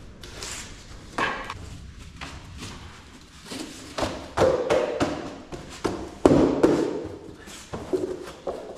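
Thuds and taps of an interlocking laminated floor mat being laid on a concrete floor and its jigsaw edges pressed together by hand, with a few louder knocks about four seconds in and again past six seconds.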